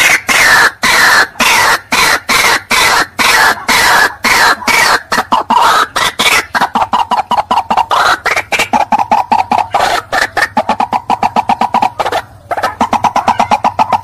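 White-breasted waterhen giving its loud, harsh croaking 'ruak-ruak' call as a rapid string of repeated notes. The notes quicken from about three a second to six or more a second, with a brief break about twelve seconds in.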